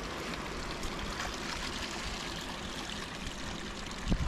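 Steady rush of running water, with a brief low thump near the end.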